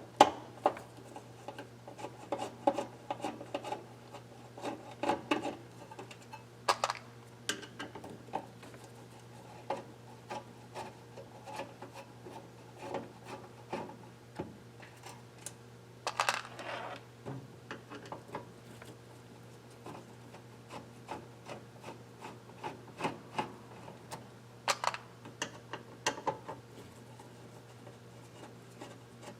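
Irregular clicks, taps and scrapes of hands and tools working on an electronic unit's casing and circuit boards, prying a board loose, over a steady low hum.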